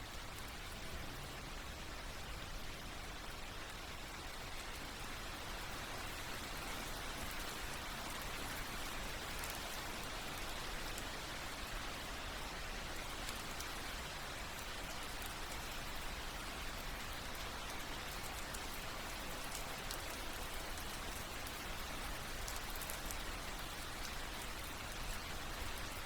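Steady, gentle rain falling on a surface, with fine drop patter.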